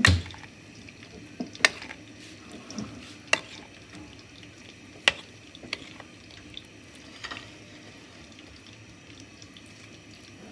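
A metal spoon mixing wet, spiced boiled potato slices with tamarind water on a plate: soft wet stirring with several sharp clinks of the spoon against the plate. The first clink is the loudest, and the last comes about seven seconds in.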